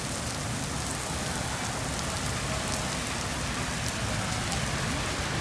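Heavy rain falling steadily on wet paving, with scattered sharp ticks of single drops close by.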